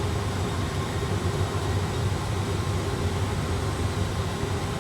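Steady low rumble of an A320 flight simulator's cockpit sound on final approach: simulated engine and airflow noise, with a few faint steady hums over it.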